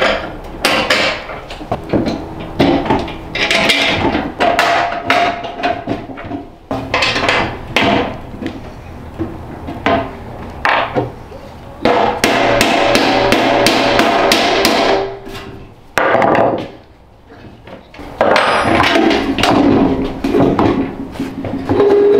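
Repeated metal clanks, knocks and scrapes from a steel ammo-can wood stove being handled and fitted together, with a few longer scraping stretches, the longest about twelve to fifteen seconds in.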